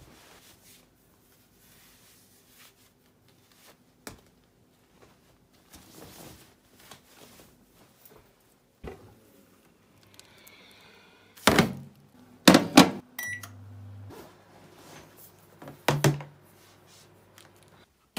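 Kitchen appliance handling: a plastic-wrapped bowl rustles, then a refrigerator or microwave door shuts with a few loud thunks. A short electronic beep follows, and a microwave oven starts with a low steady hum; another thunk comes near the end.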